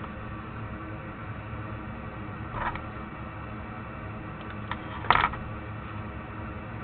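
Small hand tools clicking against a workbench during controller repair: a light click about two and a half seconds in and a sharper, louder clack a little after five seconds, over a steady low hum.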